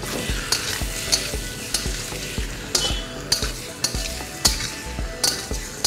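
A metal spatula stirring and scraping raw chicken pieces around a steel kadai of fried onions and chillies while the oil sizzles. The spatula scrapes and clinks against the pan about twice a second, irregularly.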